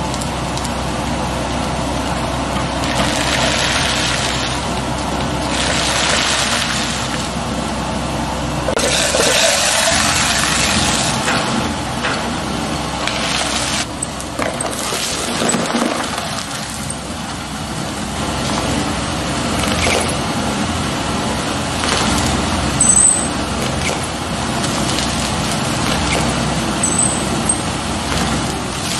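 Twin-shaft shredder's interlocking cutter discs turning and breaking up material fed into them, over a steady motor hum. The cracking and grinding comes in repeated loud bursts every few seconds.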